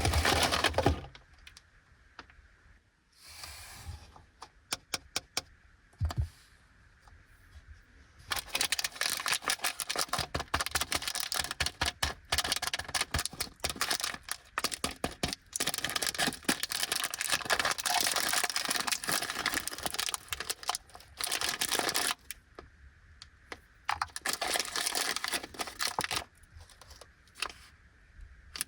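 Plastic snack bag of bite-size biscuits being handled and opened: a few soft clicks at first, then from about a third of the way in, dense crinkling and crackling of the plastic that runs on with short pauses.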